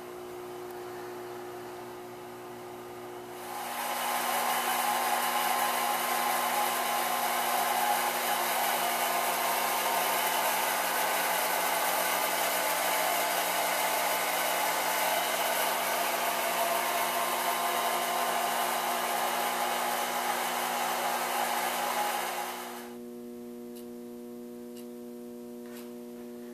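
A hand-held electric blower of the hair-dryer kind switches on about three and a half seconds in, runs at a steady even rush for about nineteen seconds, and switches off. A steady electrical hum sits under it and is heard alone before and after.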